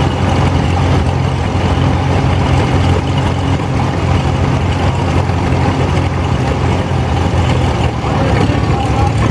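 Several antique farm tractor engines, among them a two-cylinder John Deere, running steadily at low speed as they move in a slow line, a continuous low engine sound.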